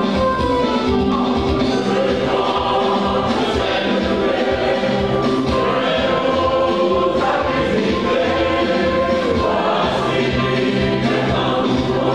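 Women's church choir singing a gospel song in unison into microphones.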